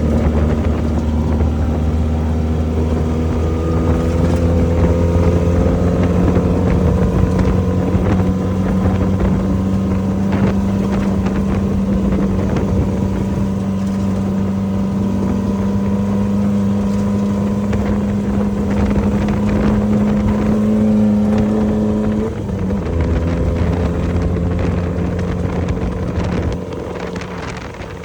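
Off-road race vehicle's engine running under steady load, its pitch climbing over the first few seconds and then holding. About 22 seconds in the pitch drops sharply, then it settles again.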